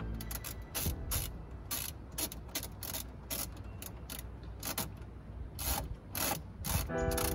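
Irregular run of sharp mechanical clicks, like a hand tool being worked, with a pitched sound of several steady tones coming in near the end.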